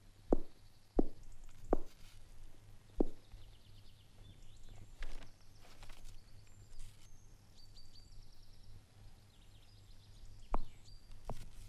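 Footsteps on a wooden staircase and floor: four sharp steps in the first three seconds, then a pause with faint bird chirping over a low steady hum, then two more steps near the end.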